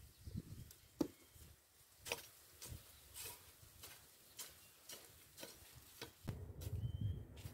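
Garden hoe scraping and chopping into dry soil, in faint scattered knocks and scrapes, with a longer scrape near the end.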